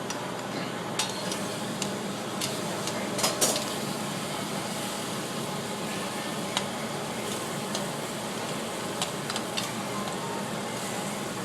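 Escargot sauce of white wine and garlic butter sizzling steadily in a hot sauté pan as it reduces, with scattered light clicks of a utensil against the pan.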